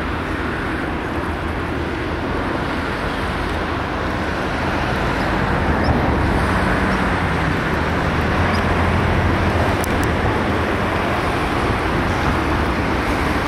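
Steady rumble and hiss of traffic-like background noise with a low hum, getting a little louder a few seconds in.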